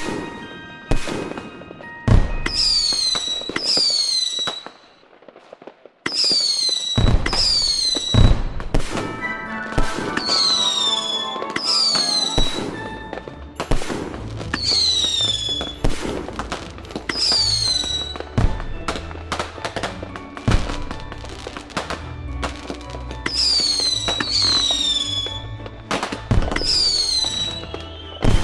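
Fireworks going off: repeated sharp bangs and a dozen or so short whistles falling in pitch, with a brief lull about five seconds in.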